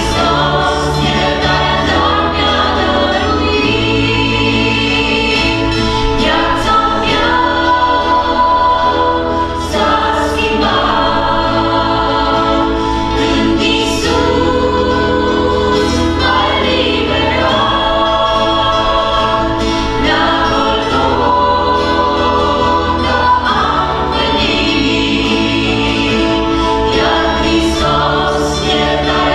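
A mixed group of women and men singing a Christian worship song in harmony, accompanied by acoustic guitar and electric bass, with the bass notes changing every second or two.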